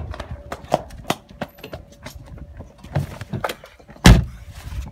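Knocks, bumps and rustles of a handheld camera being jostled while running and climbing into a car, with one loud thump about four seconds in.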